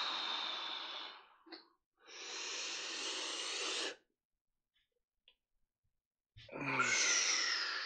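A man breathing deeply and noisily, paced to a slow overhead arm raise with a weight: one long breath fading out about a second in, another of about two seconds, and after a short silence a third starting near the end.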